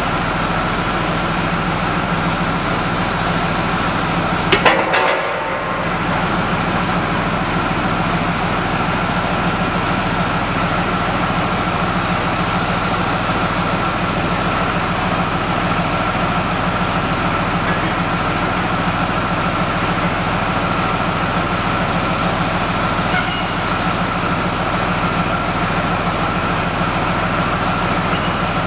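Leopard 2A4 tank's MTU MB 873 twin-turbocharged V12 diesel running steadily at idle, with a steady high whine over the deep engine note. A short louder burst of noise comes about five seconds in.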